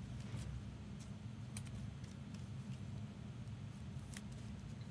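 A few faint clicks of trading cards and rigid plastic top loaders being handled, over a steady low hum.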